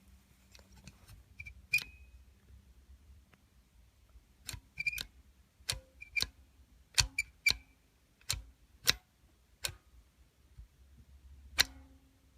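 Sharp metal clicks of a stiff, heavily sprung elevator push button and its panel being pressed and handled, about a dozen at irregular intervals. Several are followed by a short high ring.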